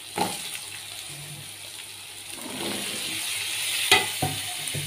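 Raw potato cubes tipped into a kadai of hot masala, which fries with a sizzle that builds through the middle. There is a click near the start and two sharp knocks near the end as potatoes and the bowl strike the pan.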